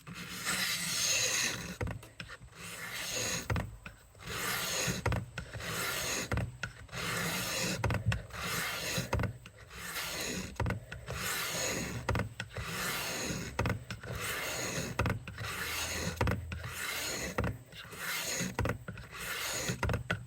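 Steel kitchen-knife edge drawn along a wet fine-grit diamond sharpening stone on a Work Sharp guided sharpening system: a steady series of gritty rasping strokes, roughly one a second.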